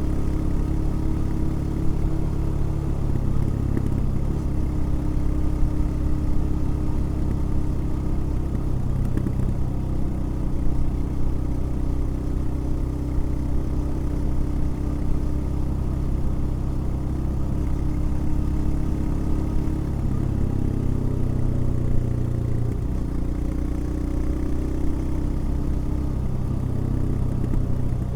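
Royal Enfield Himalayan's single-cylinder engine running while the motorcycle is ridden, a steady engine note whose pitch shifts several times as engine speed changes.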